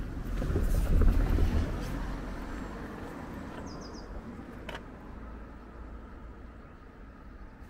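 A car passing by, its low rumble peaking about a second in and fading away over the following seconds. A few short high chirps, as of a small bird, come in the middle.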